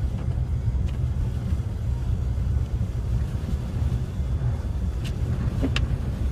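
Car driving on snow-covered roads, heard from inside the car: a steady low rumble of engine and tyres, with a few brief clicks about one second in and again near the end.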